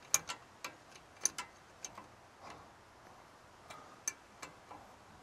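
About a dozen sharp metallic clicks at uneven intervals, some in quick pairs, from a socket ratchet turning out a rear brake caliper slide bolt.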